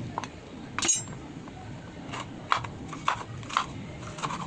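Short knocks and clinks of cookware and utensils, a few separate taps spread out, with one brighter ringing clink about a second in.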